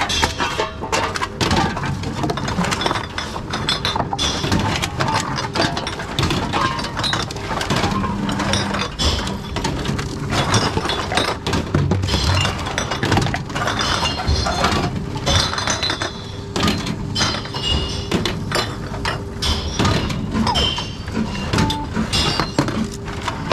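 Glass bottles clinking against each other in a tub and breaking inside a reverse vending machine, a fast clatter of knocks and clinks throughout. A steady machine hum runs underneath.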